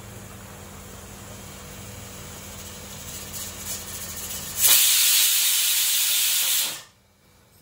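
Pressure cooker whistle blowing off steam: a loud hiss about two seconds long, starting about four and a half seconds in, which signals that the cooker has reached pressure. It follows a low steady hum and a softer hiss that builds up just before it.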